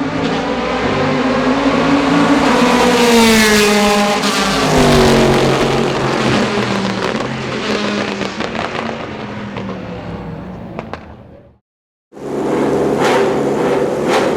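Ferrari F430 GT2 race car's flat-plane V8 at full throttle, rising in pitch as it comes on, then dropping and fading away as it passes. After a brief break, a flat-plane V8 runs steadily near idle with repeated sharp crackles and pops from the exhaust.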